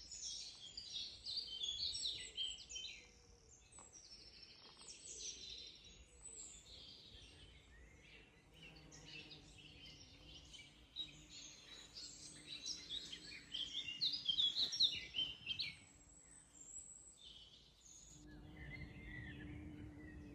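Several woodland songbirds singing at once, with overlapping high chirps and trills that come and go in waves. Near the end, a low steady hum joins in under the birdsong.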